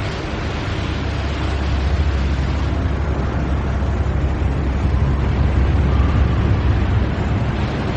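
Factory machinery running steadily: a heavy low rumble under a dense mechanical hiss, with no clear rhythm.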